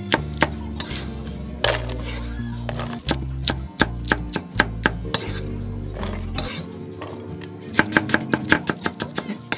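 Cleaver chopping chillies and lemongrass on a wooden chopping block: quick runs of knife strikes near the start and again in the last two seconds, with scattered single strikes in between, over background music.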